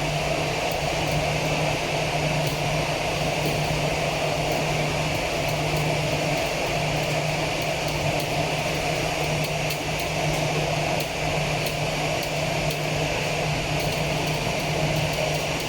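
Aircraft engines running with a steady drone: a constant low hum under a mid-pitched whir that holds even throughout.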